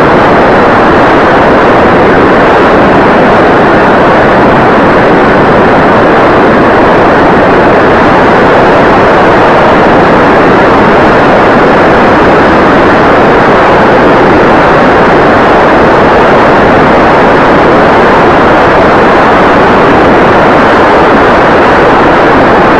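Loud, steady rushing noise of wind and propeller on the built-in microphone of an 808 keychain camera riding on a foamboard RC plane in flight. It cuts in and out abruptly.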